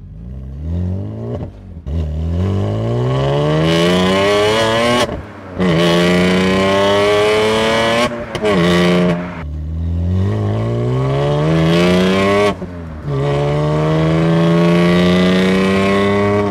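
Car engine and modified exhaust, fitted with a cut-out valve, under brisk acceleration through the gears. The engine note climbs steadily in pitch, drops sharply at each gear change (about five, nine and twelve and a half seconds in), then climbs again.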